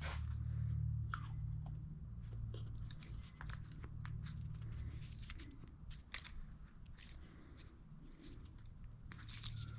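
Light clicks and rustling from small carburetor parts being handled and fitted by hand, scattered irregularly over a low steady hum.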